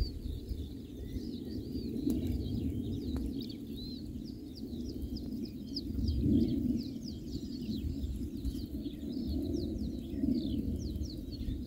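Several songbirds chirping and trilling at once, with many quick calls overlapping, over an uneven low rumble of wind on the microphone.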